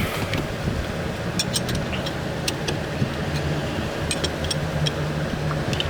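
A steady low rumble with a hum, and a scattering of short, sharp light clicks through the middle of the stretch.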